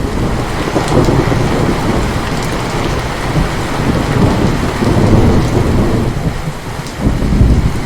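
Heavy rain falling steadily under a long rolling thunder rumble that swells louder about a second in, again around five seconds, and near the end.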